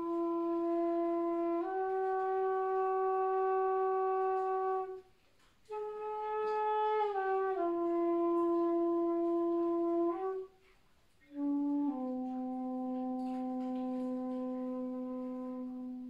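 Background music: a solo wind instrument playing slow, long held notes in three phrases with short pauses between them, sliding from note to note and ending on a long low held note.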